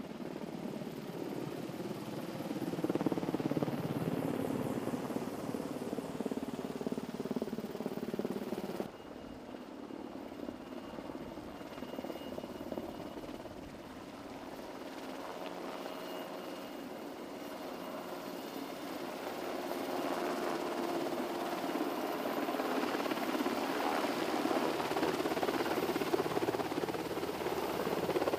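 Helicopter running steadily. The sound drops off abruptly about nine seconds in, then grows louder through the second half.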